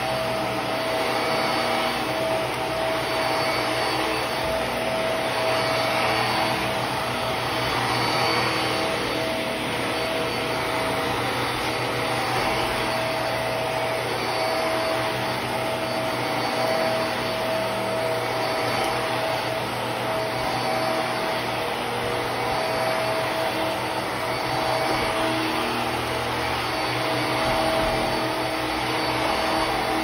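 Hart Pet Grade upright vacuum cleaner running on carpet: a steady motor whine over rushing suction noise, swelling and easing slightly as it is pushed along.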